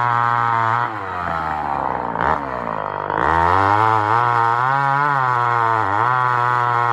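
Homelite Super XL Auto two-stroke chainsaw running at high revs. About a second in, the throttle drops and the pitch falls toward idle, then it is revved back up after about three seconds and holds high with small dips and rises.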